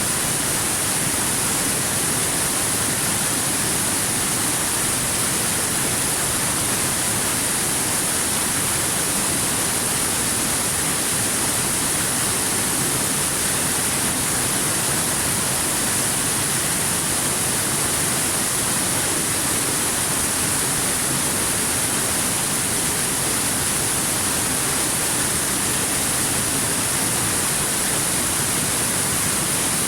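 Waterfall: falling water rushing in a steady, unbroken hiss, brightest in the high end, with no change in level.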